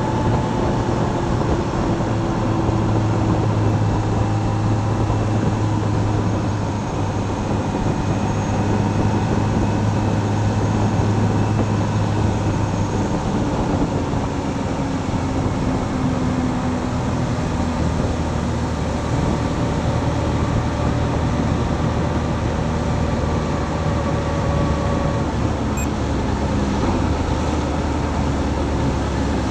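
Motorcycle engine running on the move under a steady rush of wind and road noise; its tone drops lower about halfway through as the bike slows down.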